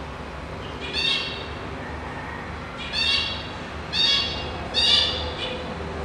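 Four short, high-pitched animal calls, one about a second in and three close together later on.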